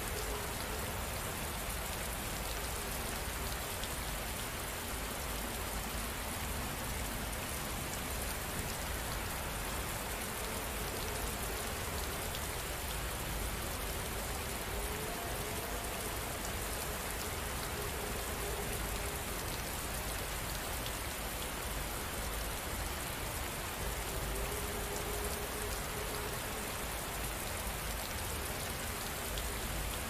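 Steady, even rain falling without let-up.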